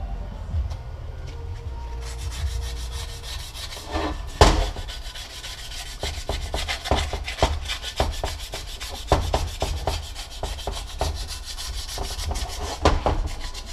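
600-grit sandpaper rubbed by hand across the mating face of a Mazdaspeed6 transfer case, in quick back-and-forth strokes that start about two seconds in. A single sharper knock comes a little after four seconds in.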